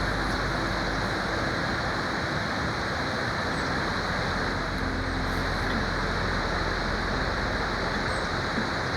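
A waterfall rushing with a steady, dense roar of falling water that stays at an even level.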